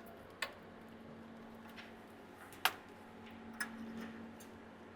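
A few small, sharp clicks as cable connectors are pulled from the receiver's circuit board, the loudest about two and a half seconds in, over a faint steady hum.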